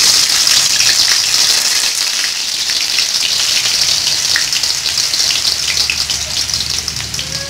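Chopped shallots frying in hot oil in a wok: a loud, steady sizzle that eases slightly toward the end.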